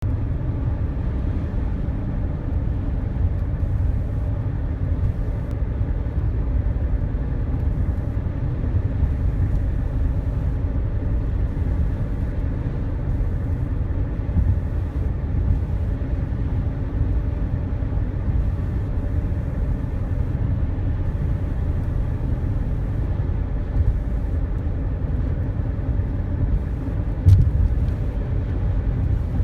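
A car driving, making a steady low road-noise rumble, with one short sharp knock near the end.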